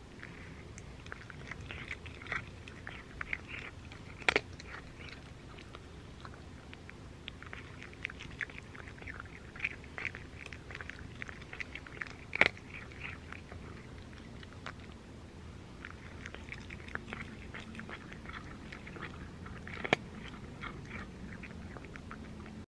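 Cat chewing dry kibble, a steady run of small crunches with three louder sharp clicks spread through, cutting off suddenly near the end.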